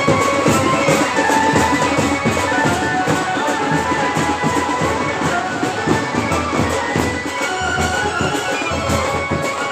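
Instrumental music with many drum strokes under held melody lines.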